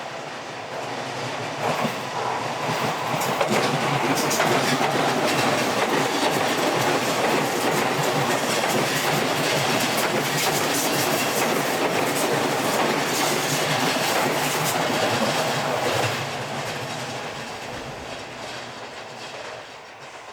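Seibu 001 series Laview limited-express electric train passing, its wheels clattering over the rail joints. The sound builds over the first few seconds, holds loud, and fades away over the last few seconds.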